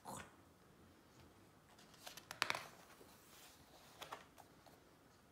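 A picture book's paper page being turned: a brief crisp rustle about halfway through, then a softer brush of paper as the page is pressed flat about four seconds in.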